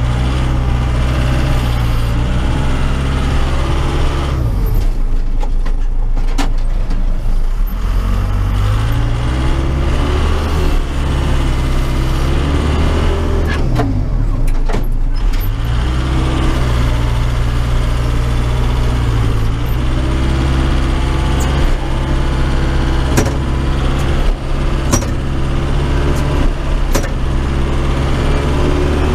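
Case 580 Super K backhoe's diesel engine running under load, heard from inside the cab as the loader pushes snow. Twice the engine note sags and then climbs back, with scattered knocks and rattles.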